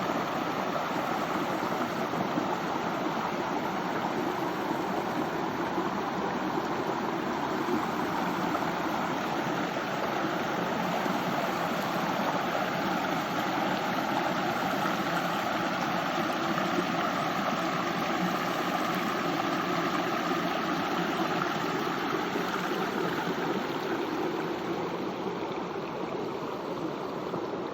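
Water of a stream flowing steadily, a continuous rushing noise that eases slightly near the end.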